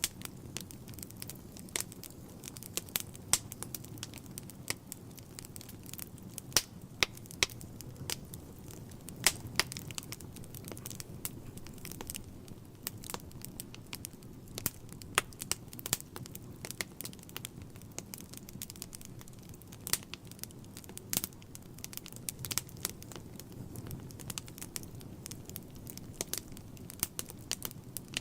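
Wood fire burning in a fireplace: irregular sharp crackles and pops from the logs over a steady low rumble.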